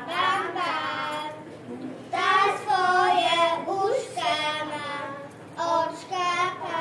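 Young children singing a song together, in long held sung phrases with gliding pitch.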